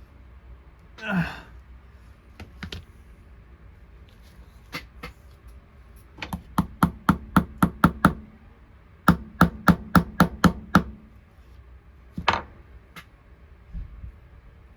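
Quick, sharp metal taps, such as a small hammer makes on a diecast toy's parts, in two runs of seven or eight at about three or four a second, with a few single taps around them. A short falling sound comes about a second in.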